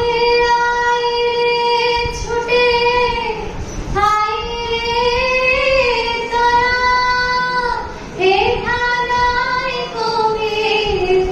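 A teenage girl singing solo and unaccompanied into a handheld microphone, in long held notes, with short breaks for breath about four and eight seconds in.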